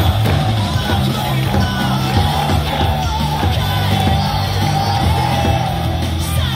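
Pop-rock song with sung vocals over a steady bass line, played on a baseball stadium's PA as a pitcher's entrance music, with some crowd shouting.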